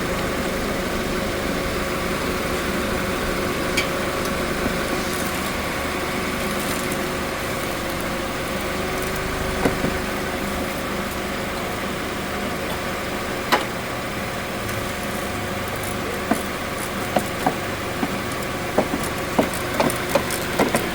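A steady mechanical hum with a few held tones, like an idling engine or shop machine, runs throughout. Over it come scattered sharp clicks and taps from refitting the bumper's fasteners, which come quicker, about two a second, over the last five seconds.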